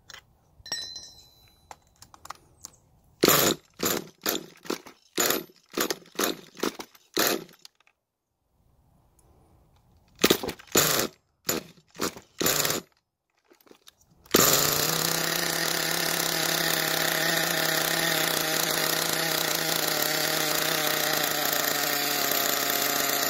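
Redcat Earthquake 3.5's small two-stroke nitro glow engine being cranked over in two runs of quick starting attempts. About fourteen seconds in it catches and runs at a steady high pitch until it cuts off suddenly. The needle is set at 1.25 turns out while the engine is flooding.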